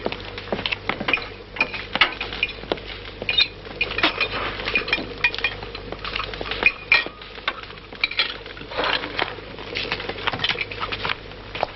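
A spoon clinking and scraping against a china plate in quick, irregular strokes as someone eats hurriedly, with dishes knocking on a wooden table.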